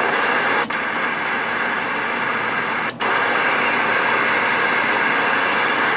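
Galaxy CB radio's speaker hissing with steady static between transmissions, broken twice by a brief click as the signal drops out.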